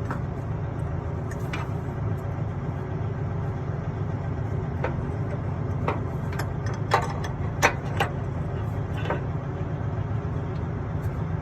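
A steady low engine hum of an idling vehicle, with a handful of sharp metallic clicks and taps from hand tools working on the fitting, the loudest two about seven and eight seconds in.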